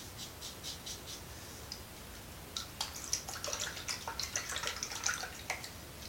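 Safety razor blade scraping stubble through shaving lather in short strokes: a few light strokes in the first second, then a quicker, denser run of crackly strokes from about two and a half seconds to five and a half.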